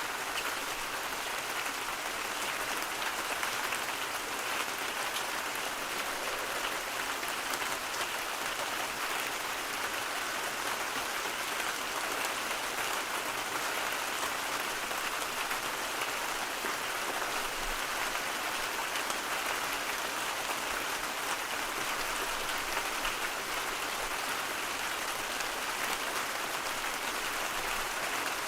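Steady rain, a dense even patter of drops with no pauses or changes.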